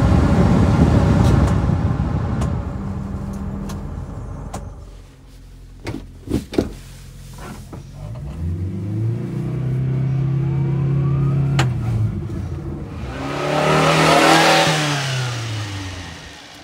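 The cab's ventilation fan blows at full speed and dies away, then a few sharp knocks. A 1997 Subaru Sambar kei truck's four-cylinder engine then revs up and holds, and the truck drives past, loud for a moment with the engine pitch falling, and fades away.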